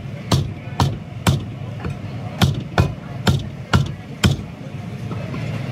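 Meat cleaver chopping through beef into a wooden chopping block: a run of sharp chops, about two a second, that breaks off near the end.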